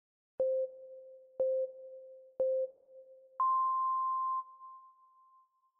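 Countdown timer sound effect: three short beeps a second apart, then one higher, longer beep of about a second for "go".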